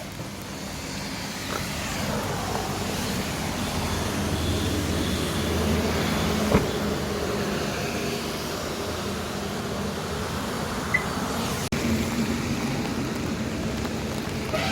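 A moving road vehicle: a steady rumble that swells a little over the first few seconds, with one sharp click about six and a half seconds in.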